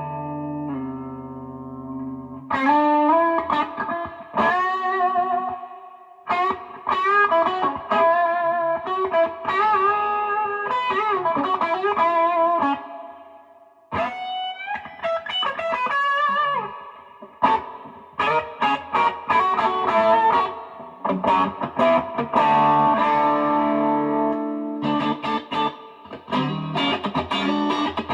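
Electric guitar played through a Fender Blues Junior tube combo amp: lead phrases with string bends and vibrato in a juicy overdriven tone, loud enough that the player reckons it is clipping the microphone.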